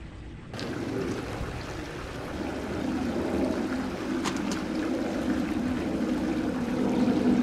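Water running steadily in a backyard pond's stream, with a brief click about four seconds in.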